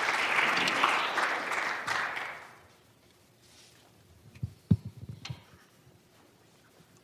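Audience applause that dies away after about two and a half seconds. Near the middle, a few short low knocks from the podium microphone being handled and adjusted.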